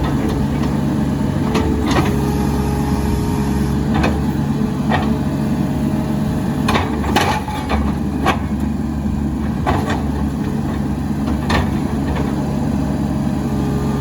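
New Holland LS140 skid steer's diesel engine running steadily, with a scatter of sharp metallic knocks about every second or two.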